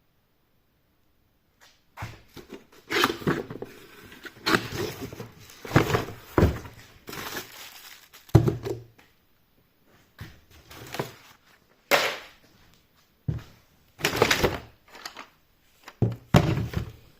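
A box and its packaging being handled: irregular thunks and knocks mixed with rustling, starting about two seconds in and coming in short clusters with brief pauses.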